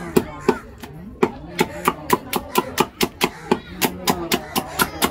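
Large knife striking a big fish on a wooden stump chopping block in quick, regular strokes, about four a second, each a sharp knock on the wood.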